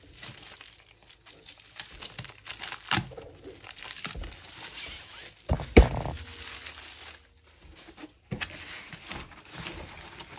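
Packaging and the rolled diamond painting canvas crinkling and rustling as they are handled and unrolled, with a few sharp knocks, the loudest just past halfway through.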